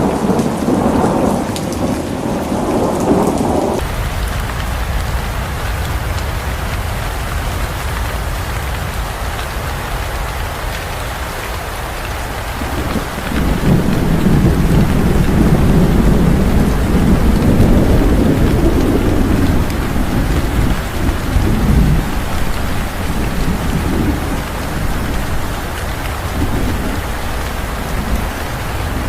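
Heavy rain falling steadily through a thunderstorm, with rolling thunder. One rumble cuts off abruptly about four seconds in, and a longer, louder rumble builds around the middle and fades over several seconds.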